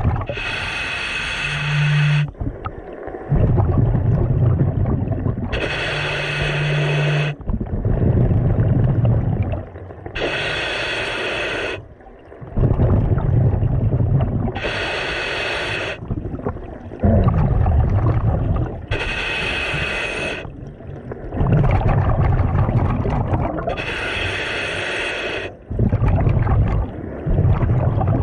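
A scuba diver breathing underwater through a regulator, in a steady cycle: a hissing draw about every four and a half seconds, each followed by a longer rumble of exhaled bubbles.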